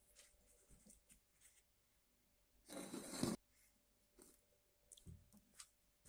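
Faint handling clicks and one short rustle, under a second long, about halfway through, as cling-film-wrapped corn cobs are moved on a plate.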